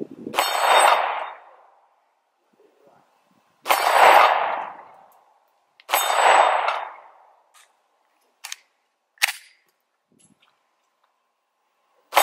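Sig Sauer P320 9mm pistol fired at steel swinger targets: three single shots a few seconds apart, each followed by a ring of steel from the hit, then two short light clicks in a pause, and another shot right at the end.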